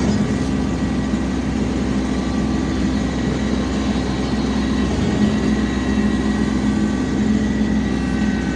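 Tractor engine running steadily under load while pulling a bush hog (rotary cutter): a constant deep drone with a faint high whine above it.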